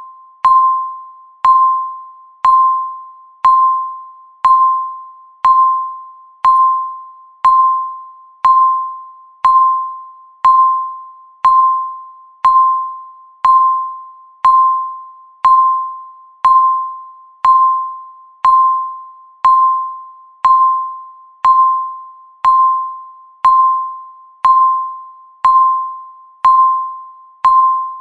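Countdown timer's tick sound, one electronic beep every second. Each tick is a sharp click with a ringing tone that fades before the next.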